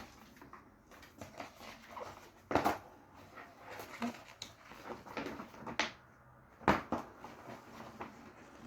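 Cardboard box and contents of a boxed tabletop game being handled and unpacked: irregular knocks, taps and rustles, with sharper knocks about two and a half seconds in and again near seven seconds in.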